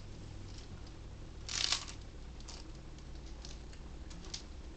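A brief crinkle of a paper fast-food wrapper about a second and a half in, with faint small rustles and ticks over a low steady hum.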